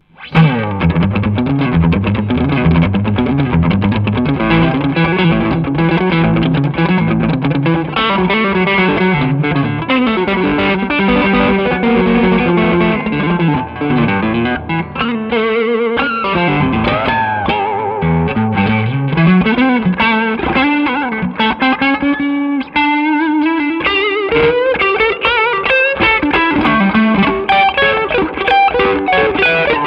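PRS Silver Sky electric guitar played through a SineWave Sterling Custom Signature amp with a TS10 overdrive pedal: driven lead playing with quick runs and string bends. It comes in suddenly just after the start.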